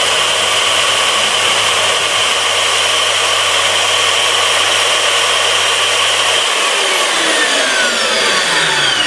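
Fein KBM 50 Auto magnetic core drill cutting a 20 mm hole through 12 mm S235 steel under automatic feed: a loud, steady run. About six and a half seconds in, the drive cuts out and the motor winds down, its pitch falling steadily.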